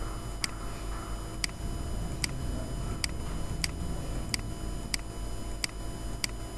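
Computer mouse button clicking about nine times at an uneven pace, roughly one click every two-thirds of a second, over a steady low hum.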